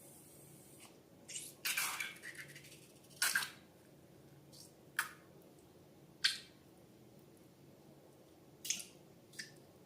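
Slime being handled: irregular short, wet squelches and clicks, a longer cluster of them about two seconds in, then single sharp ones every second or two.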